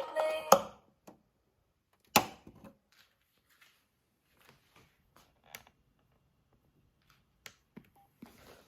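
Music stops abruptly about half a second in. A sharp click follows about two seconds in, then scattered faint clicks and taps, like small objects being handled.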